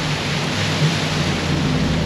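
A 4WD towing a camper trailer ploughing through a flooded creek crossing: a steady rush of water splashing and spraying off the wheels, over the low drone of the engine.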